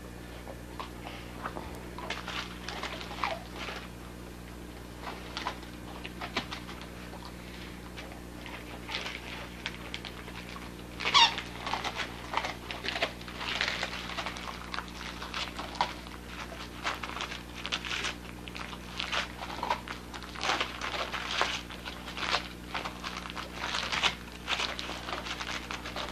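Dogs tearing and chewing wrapping paper off presents: irregular rustling, ripping and crinkling, with a sharp squeak about eleven seconds in.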